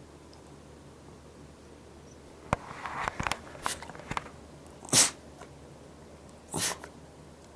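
Miniature dachshund in a sneezing fit: a quick run of short sneezes about two and a half seconds in, then two louder sneezes about a second and a half apart.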